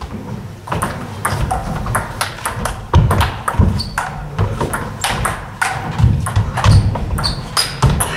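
Table tennis rally: the celluloid ball clicking off bats and table in a quick, irregular run of sharp ticks, starting about a second in. Heavy thuds from the players' shoes on the wooden hall floor come under it.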